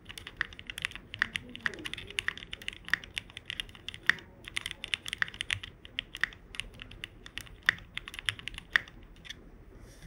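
Typing on a plateless-mounted GOK 7V mechanical keyboard with lubed, filmed Cherry Hyperglide Black linear switches and GMK keycaps: a fast, irregular run of keystrokes that stops about nine seconds in.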